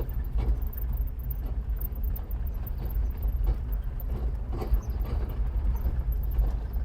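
A car driving along a street, heard from inside the cabin: a steady low road and engine rumble with scattered small knocks and rattles.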